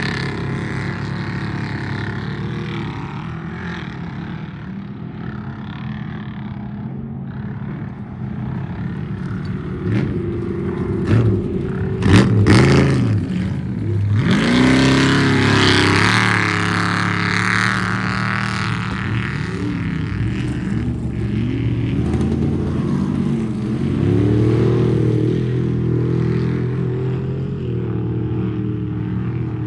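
Trophy truck engines running, with revving that rises and falls in pitch about twelve seconds in, the loudest moment, and again about twenty-four seconds in.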